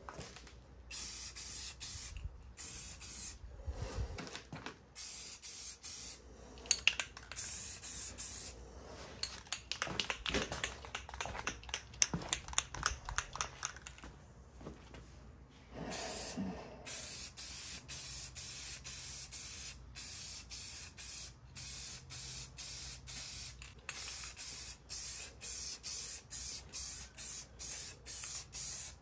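Aerosol spray paint can hissing in many short bursts as a wheel is sprayed. Part way through, a stretch of quick rattling clicks, the can's mixing ball as the can is shaken.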